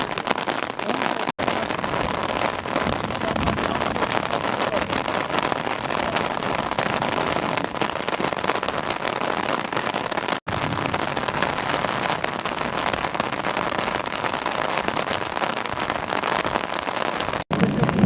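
Steady, even hiss of noise, cut to silence for an instant three times.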